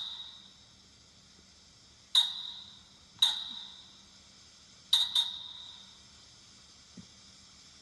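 Four sharp, high ringing pings, each struck and then dying away over about half a second. The last two come close together, and the tail of another ping rings on at the start.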